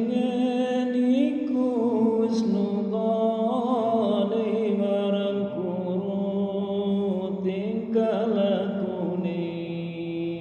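A man's voice chanting one long, drawn-out melismatic Islamic phrase, its pitch winding up and down, fading near the end.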